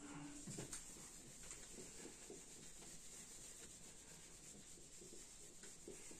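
Faint, repeated rubbing strokes of a handheld whiteboard eraser wiping marker writing off a whiteboard.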